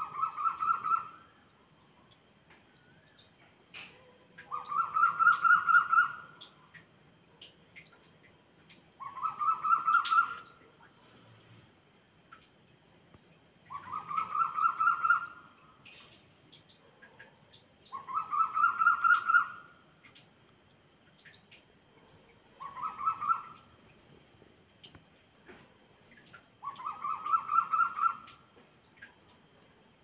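A night animal gives a call of rapid pulses that builds in loudness, about one and a half seconds long, seven times about every four seconds. A steady high chorus of crickets runs underneath.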